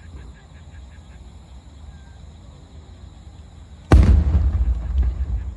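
Aerial firework shell bursting about four seconds in: one sharp, loud boom followed by a rumbling decay lasting over a second.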